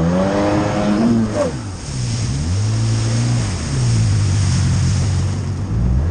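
2000 Sea-Doo GS personal watercraft's two-stroke engine running under way, the throttle opened and backed off several times so the engine note climbs, drops, and holds in turn, over a hiss of rushing water.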